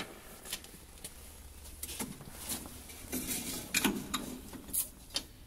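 Metal parts of a MiG-23 fuel filter and its housing clicking and clinking as the filter is worked back into place: a sharp click right at the start, then scattered light knocks that come thicker about three to five seconds in.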